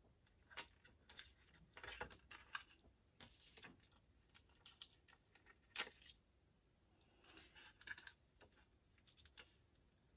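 Faint scattered clicks and short rustles of fingers handling a paper gift card holder and a clear plastic sheet of adhesive pearls, peeling pearls off and pressing them onto the card.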